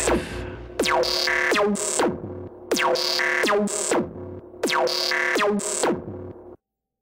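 Synthesizer music with no vocals: a short figure with falling sweeps repeats three times about two seconds apart, each fading out, and then the music cuts off suddenly near the end.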